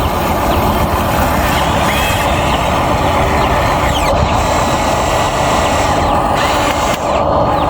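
Steady machine noise, like a running engine, with short high squeaks scattered over it.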